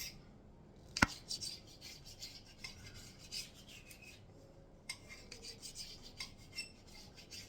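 Faint rubbing and scraping of chin chin dough being kneaded by hand on a work surface, with one sharp knock about a second in and small ticks scattered through.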